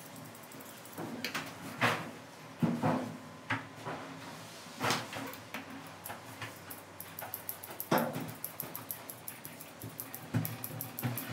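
Grooming comb drawn through a poodle's dense curly coat in short, irregular strokes. A quick run of fine clicks starts about two thirds of the way in.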